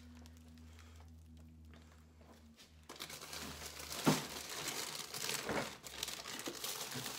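Plastic bags of frozen food crinkling and rustling as someone rummages in a freezer for a bag of breadcrumbs. The rustling begins about three seconds in, with a knock about a second later. Before that there is a low steady hum.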